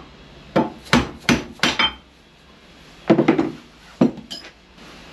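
Hammer blows on a steel shaft used as a drift, knocking the old oil seal out of the water pump housing. A quick run of about five sharp knocks, then a short clatter and two more knocks a second or so later.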